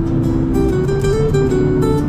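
Background music: a plucked-string melody, its notes changing every fraction of a second, over a dense low accompaniment.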